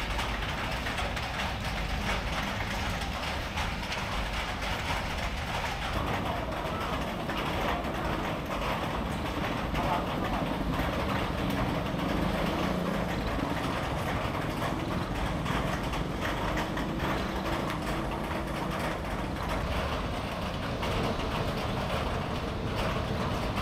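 Steady street traffic noise, with indistinct voices mixed into it.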